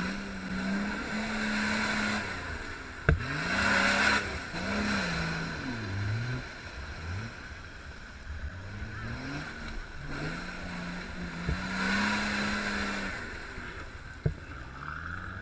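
A 4x4 SUV's engine revving up and down repeatedly as it ploughs through a deep mud pool, with surges of churning, splashing mud and water. A sharp knock about three seconds in and another near the end.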